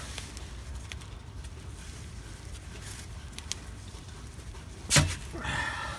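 Wrench working loose an engine oil pan's drain plug: one sharp knock about five seconds in, followed by a short grating sound, over a low background rumble.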